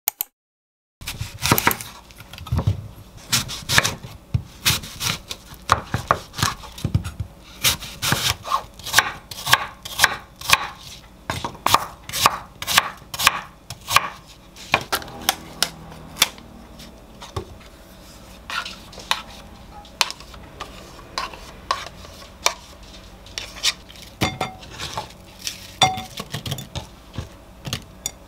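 A chef's knife chopping an apple on a wooden cutting board, sharp knocks at about two a second. After about halfway the knocks give way to sparser taps and clinks as apple pieces and a utensil go into a bowl.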